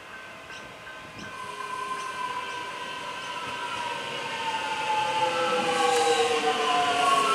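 Melbourne X'Trapolis 100 electric suburban train pulling into the platform, its traction whine of several tones falling steadily in pitch as it slows. It grows louder as the train draws nearer.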